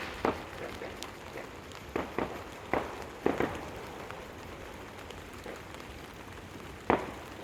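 Fireworks going off: about seven sharp bangs at irregular intervals, several close together in the middle and the loudest near the end, over a steady hiss.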